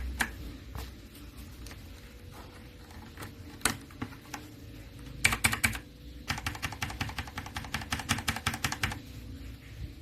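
Mechanical keyboard with Gateron Milky Yellow Pro linear switches being typed on. Scattered single keystrokes come first, then a quick burst a little past halfway, then a fast, even run of keystrokes for about three seconds near the end.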